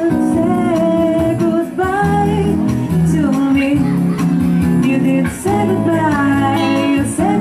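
Music: a song with a singing voice over guitar accompaniment and steady bass notes.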